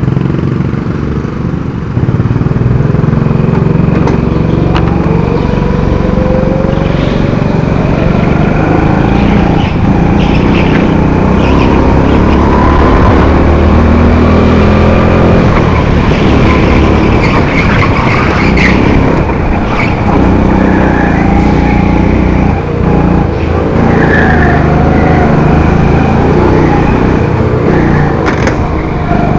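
200cc Honda kart engine heard from onboard, pulling away about two seconds in, then revving up and down lap after lap as it accelerates and lifts for corners. Tyres squeal at times through the turns.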